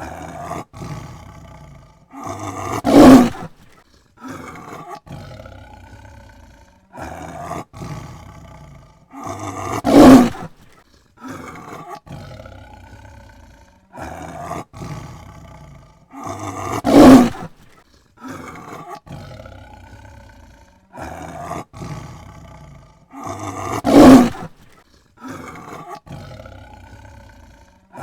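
Tiger roaring: four loud roars about seven seconds apart, each led up to by a run of shorter, quieter calls. The same sequence repeats each time.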